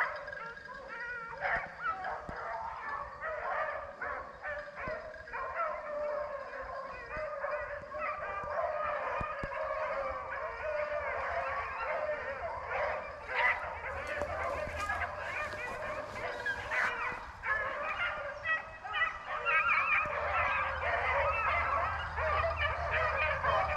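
A pack of rabbit-hunting hounds baying and yelping together in many overlapping voices, the sound of the dogs running a rabbit on its scent trail. The chorus builds louder toward the end.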